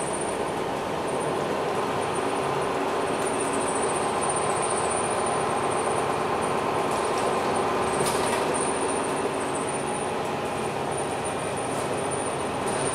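MAN NL323F A22 Gemilang single-deck bus heard from inside the passenger cabin while driving at low speed: a steady engine and drivetrain hum with road noise, and a thin high whine that comes and goes. A short click or rattle about eight seconds in.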